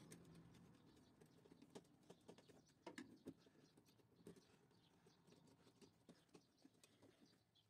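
Near silence with faint, scattered light clicks and ticks as wires are handled and worked into screw terminal blocks with a screwdriver.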